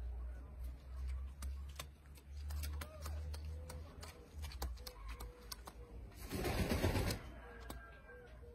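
Fancy pigeons cooing: a string of short, low, even coo notes starts a few seconds in. Scattered sharp clicks run alongside, and a brief loud rustling burst comes a little past six seconds.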